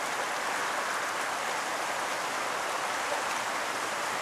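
A small, shallow river rushing and rippling over its stony bed in a steady, even rush of water.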